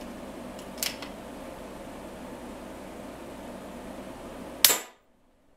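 Edgun .30-calibre PCP air rifle firing one shot near the end, a single sharp crack with a short ring-off, over a steady background hum that drops away right after it. A fainter click comes about a second in.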